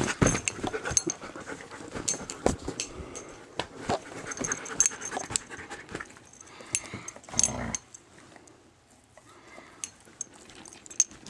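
A dog panting right up against the microphone, with many sharp clicks and rubbing noises as fur and the dog's head brush and knock the camera. A louder rustling burst about seven seconds in.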